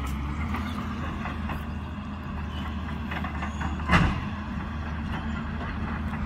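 Caterpillar 320 hydraulic excavator's diesel engine running steadily as it works, a low even drone, with a single short knock about four seconds in.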